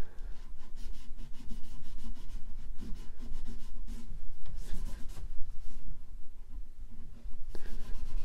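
Cotton rag rubbed back and forth over a finished wooden chair leg in repeated scuffing strokes, buffing excess soft wax filler off the repaired spot.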